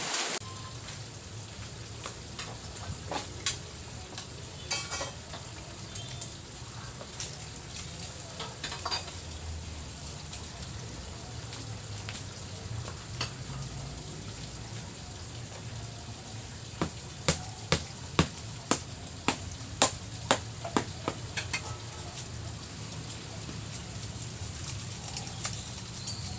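Steady hiss of rain falling. A little past halfway comes a run of about ten sharp ticks, roughly two a second.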